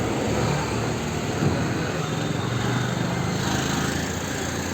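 Street traffic noise, with a small engine running over the general hum of vehicles.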